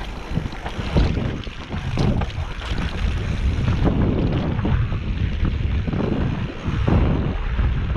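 Wind buffeting the microphone and tyre rumble from a mountain bike riding fast down a dirt forest trail, with irregular knocks and rattles as the bike goes over bumps.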